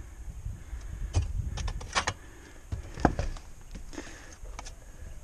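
Handling knocks and clatters on sheet-metal roofing: a few sharp knocks, the loudest about two and three seconds in, over a low rumble.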